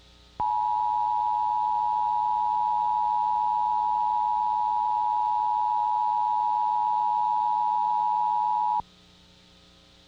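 Emergency Alert System attention signal: two steady tones sounding together just under 1 kHz (853 and 960 Hz), held for about eight seconds and cutting off sharply. It announces a National Weather Service flash flood warning.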